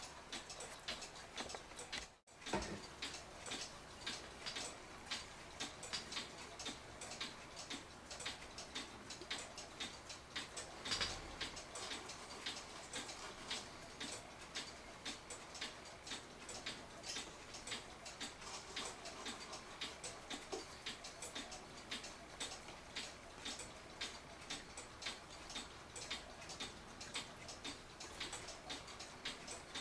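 Mechanical clock ticking with an even, steady tick-tock. A soft low knock comes about eleven seconds in.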